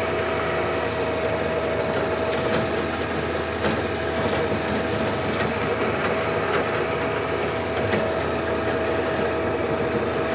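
John Deere 1025R subcompact tractor's three-cylinder diesel engine running steadily under load while its rear PTO-driven King Kutter rotary tiller churns the soil. A steady high whine sits over the engine, with a few sharp ticks.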